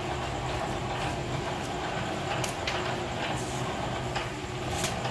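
Homemade pedal-powered belt drive spinning a small propeller in open air: a steady mechanical whir from the drivetrain and blades, with a few light clicks.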